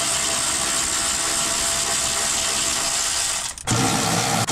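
ACDelco 1/2-inch brushless cordless ratchet running steadily, spinning out a bolt of a car's under-engine splash shield. It stops briefly about three and a half seconds in, then runs again.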